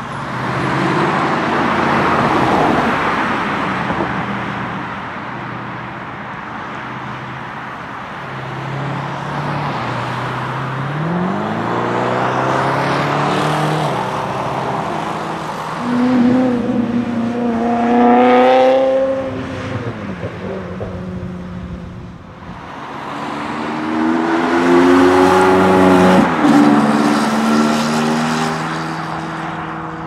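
Cars passing one after another along a road, their engines accelerating. The revs climb in several passes: one about a third of the way in, a stronger pull with its pitch climbing steeply a little past halfway, and another near the end with a brief dip in pitch partway through.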